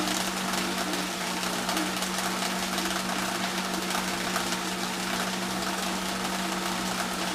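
Planter seed-meter test stand running soybeans: a vacuum blower holding about 17 inches of vacuum hums steadily, under a fine, rapid ticking from seed passing through a vSet Classic meter with a 27-cell corn disc, driven by its vDrive electric motor at about a quarter of full speed.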